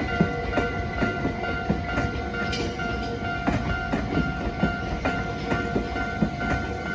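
Japanese level-crossing warning bell ringing over and over as a Nankai Line train passes, its wheels rumbling and clacking over the rail joints.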